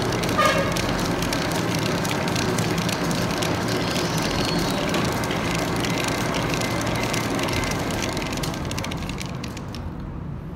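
Metal lathe running with a Sinotruk Howo truck front wheel spindle spinning between the chuck and the tailstock centre: a steady mechanical run with a dense crackle of fine ticks on top. The ticking and hiss fall away near the end.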